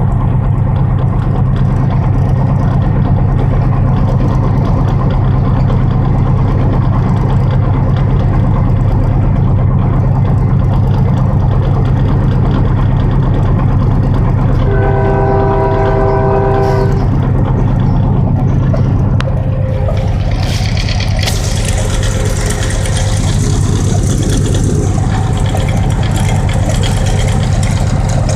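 Diesel freight locomotive running with a steady low engine drone; about halfway through the horn sounds once, held for about two seconds. A higher hiss joins the drone for the last third.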